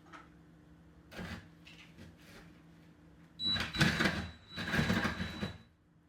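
A reciprocating saw run in two short bursts of about a second each, with a thin high whine running through both.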